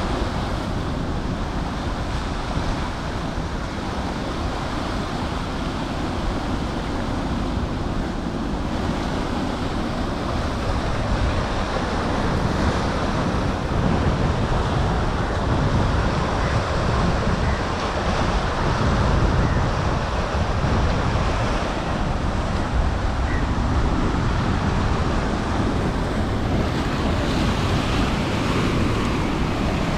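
Steady rushing of wind and waves on open water, with wind buffeting the microphone.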